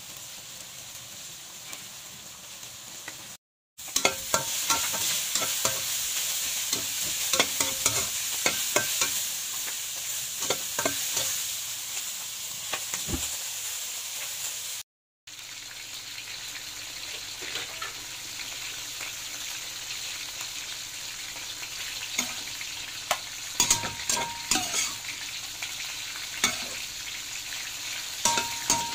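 Eggplant chunks sizzling in hot oil in a wok, with a spatula scraping and clicking against the wok as they are stirred. The sound cuts out briefly twice.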